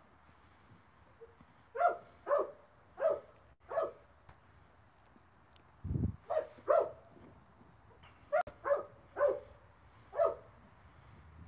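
A dog barking in three runs of three or four short barks each, roughly half a second apart, with pauses of a couple of seconds between runs. A low thump falls about six seconds in.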